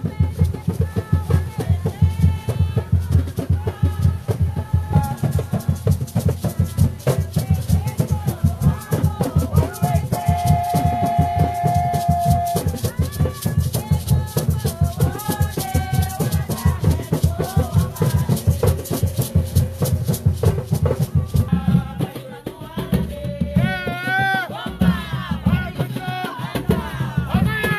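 Garifuna drumming with rattling shakers keeping a fast, dense beat under group singing. The sound changes abruptly about three-quarters of the way through, where another group's drumming and singing takes over.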